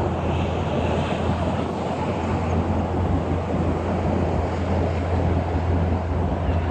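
2017 Ford Shelby GT350's 5.2-litre Voodoo flat-plane-crank V8 idling steadily through its active exhaust, with some wind noise on the microphone.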